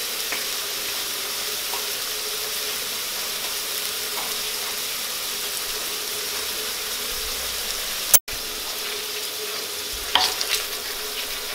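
Potato rounds frying in olive oil in a pan, a steady sizzle as their second side browns. The sound drops out for a moment about eight seconds in, and a few metal clinks come near the end as a fork and spoon go into the pan.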